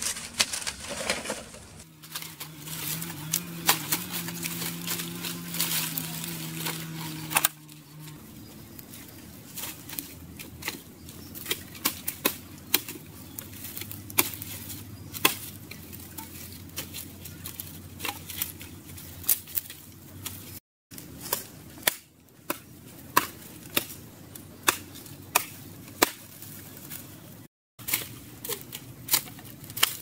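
Dry palm fronds and twigs crackling and popping as they burn in a small fire pit, with sharp irregular snaps throughout. A low steady hum sits under it for a few seconds near the start.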